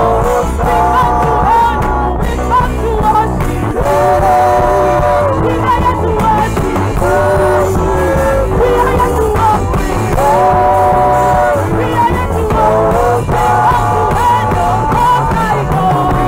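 A gospel worship song sung by a female lead singer with a small group of backing vocalists, in long held notes over instrumental backing with a heavy low bass.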